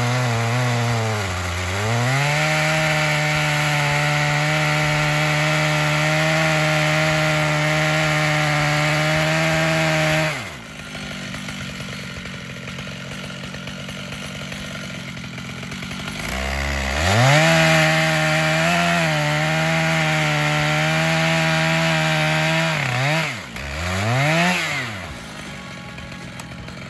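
Stihl MS 881 two-stroke chainsaw on a chainsaw mill, held at full throttle while cutting a cookie from a white oak log. It drops to idle about ten seconds in, revs back up for several seconds, then falls back to idle with one brief rev near the end.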